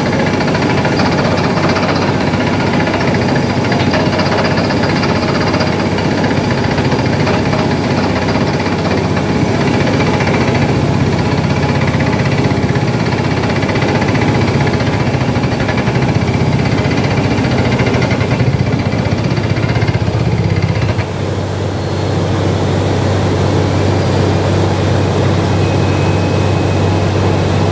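Truck-mounted borehole drilling rig running and drilling into the ground, its engine and drill head giving a loud, steady mechanical rattle. About three-quarters of the way through the rattle drops away and the rig's engine carries on as a steady low hum.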